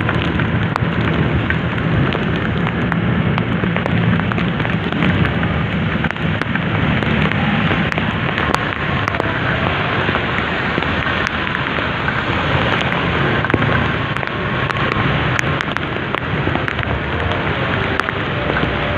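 Heavy rain, with many drops striking close to the microphone as sharp ticks, over a steady low rumble.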